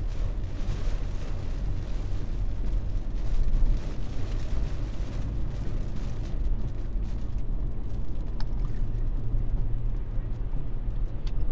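Steady low road and engine rumble heard from inside a moving car, with a brief swell in loudness about three and a half seconds in.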